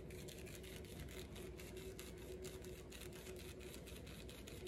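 Faint crackling and rustling of Orb Molecules foam-bead clay being rolled between the palms, over a steady faint hum.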